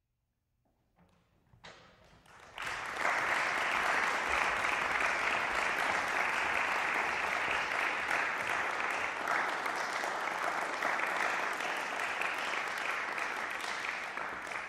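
Audience applauding, building up about two seconds in, holding steady, and beginning to die away near the end.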